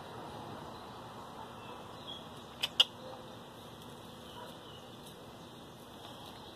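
Quiet outdoor background hiss with faint, short, high chirps, broken by two sharp clicks in quick succession a little under three seconds in.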